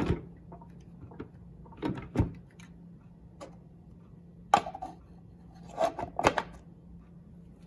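Plastic water tank of a Crane ultrasonic cool mist humidifier being handled and set back onto its base: short hollow knocks and clunks in a few clusters, the sharpest about halfway through.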